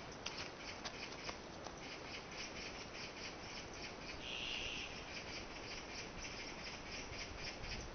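Insects chirping outdoors in a steady, regular pulse, about three chirps a second, with one brief louder call about four seconds in. A few faint ticks in the first two seconds.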